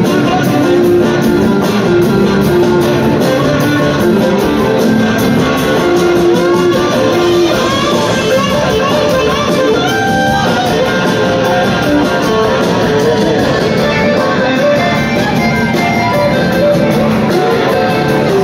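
Live blues-rock band playing, with electric guitars leading over drums and the rest of the band, heard from the audience in a concert hall.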